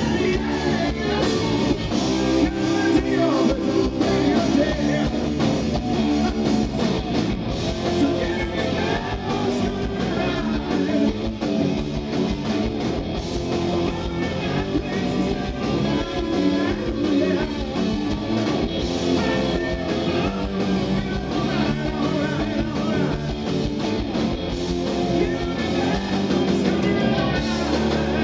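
Live rock band playing loud and steady, with electric guitar over bass and drums and a voice singing at times.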